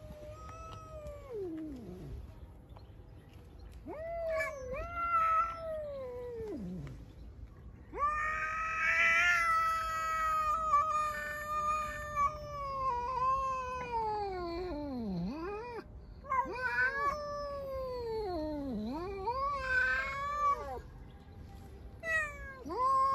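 Cats caterwauling at each other in a threat standoff: a run of long, drawn-out wavering yowls, several of them ending in a downward slide, the longest lasting about eight seconds.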